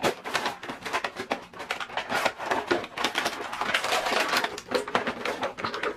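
Clear plastic blister tray and cardboard insert of an action-figure package crinkling and rustling as they are pulled apart by hand, a quick irregular run of crackles and clicks.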